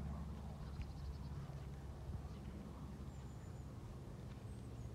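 A horse's muffled hoofbeats on turf under a steady low rumble of wind on the microphone, with a few faint high bird calls.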